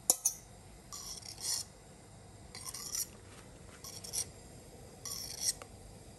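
Metal spoon scraping against the pot while stirring milk that is curdling after sour yogurt was added, the first stage of making chhena. A knock at the start, then four short raspy scrapes about one every second and a half.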